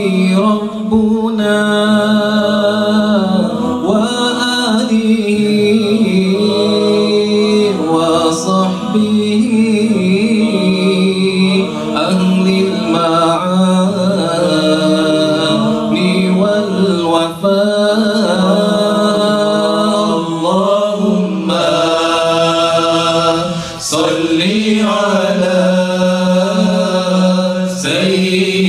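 Men's voices chanting an unaccompanied Arabic devotional song in praise of the Prophet Muhammad (salawat), in long held notes that bend and slide in pitch.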